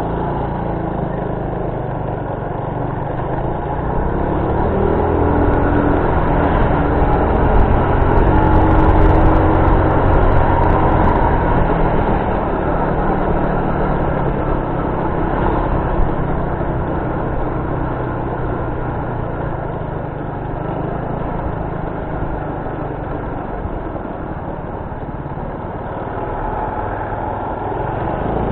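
Vehicle engine running with road noise while driving. The engine picks up speed and gets louder from about four seconds in, holds for several seconds, then eases back to a steady drone.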